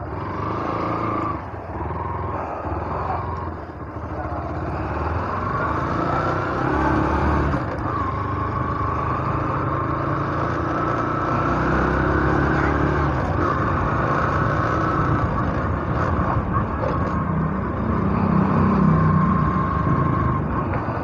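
Yamaha SZ motorcycle's single-cylinder engine running while riding at low speed, with road and wind noise. It gets louder a few seconds in and again near the end as the bike picks up speed.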